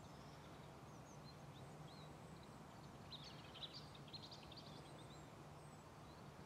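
Near-silent rural ambience with a faint low steady hum. About three seconds in, small birds give a brief flurry of high chirps.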